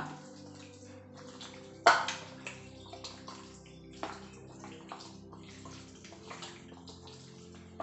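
A bare hand squishing and squelching raw chicken pieces through a wet curd-and-spice marinade in a bowl. Irregular wet slaps and smacks, the loudest about two seconds in and another about four seconds in.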